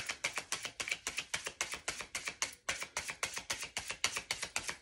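A deck of tarot cards being shuffled by hand: a quick, even run of soft card slaps, about six a second, with a brief pause about halfway through.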